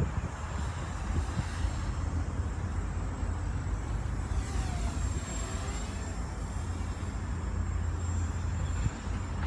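Small 250-size racing quadcopter's motors and propellers buzzing in flight, with a sweep in pitch about halfway through as it passes, over a steady low rumble of wind on the microphone.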